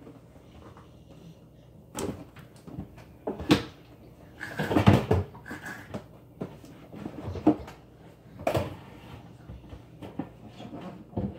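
Scattered knocks, bumps and rustling from a wooden kitchen cabinet as a child squeezes into it, the door and panels knocking several times; the loudest cluster comes about five seconds in.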